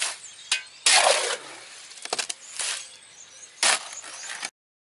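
Steel shovel scraping through wet concrete in a metal wheelbarrow: three harsh scrapes with small knocks between them, the first the loudest, then the sound cuts off just before the end.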